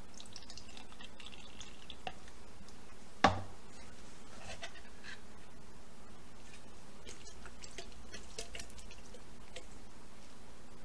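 Pineapple juice draining from the can into a glass, faintly trickling and dripping, with one sharp knock about three seconds in.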